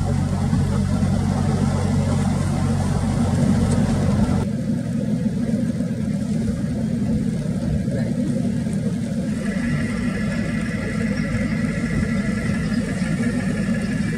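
Car engine idling steadily, heard from the vehicle. Its low hum changes about four and a half seconds in, and a faint steady high tone joins about two-thirds of the way through.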